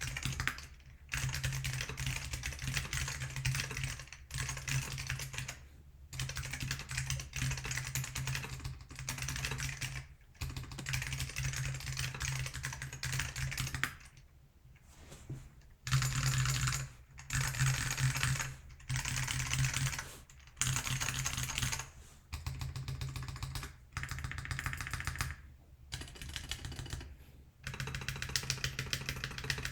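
Fast typing on a GeonWorks F1-8X mechanical keyboard with lubed Alps SKCM Salmon switches: dense runs of rapid key clicks, broken by short pauses every couple of seconds and one longer pause about halfway through.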